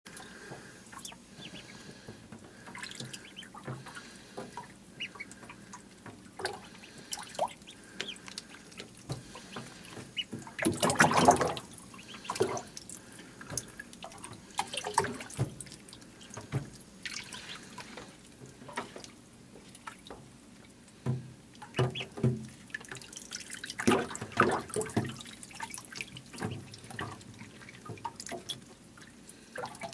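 Ducklings paddling and moving about in shallow water in a plastic tub: scattered small splashes and drips, with one louder splash lasting about a second partway through and more clusters of splashing later.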